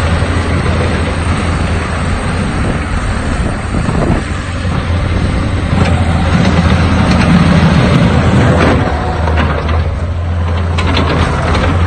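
Takeuchi TL10 track loader's diesel engine running steadily, a little louder and heavier from about six to eight seconds in. Several sharp clicks and knocks come near the end.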